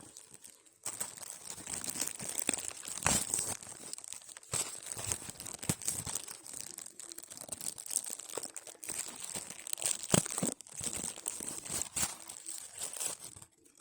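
Plastic packaging crinkling and tearing as it is handled, with many sharp crackles, starting about a second in and stopping just before the end.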